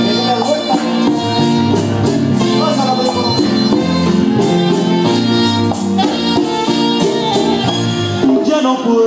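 Live Latin band music with a steady beat: saxophones, keyboard and drum kit, with a metal scraper keeping time.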